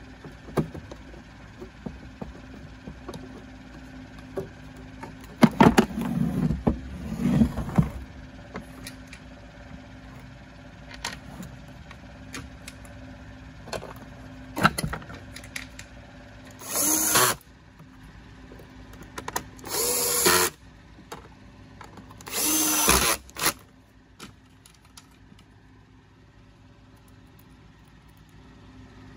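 Cordless drill-driver run in three short bursts about three seconds apart, driving screws to refit the vacuum cleaner's plastic housing. Several seconds earlier there is a cluster of knocks and rattles as the plastic parts are handled and pressed into place.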